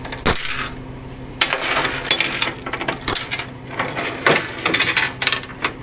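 Steel tie-down chain and a lever load binder clinking and rattling against a rollback tow truck's steel deck as the chain is handled: one sharp clank just after the start, then a quick, irregular run of metallic clinks.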